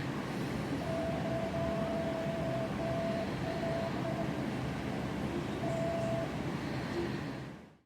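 A steady mechanical rumble with a whining tone that comes and goes, fading out near the end.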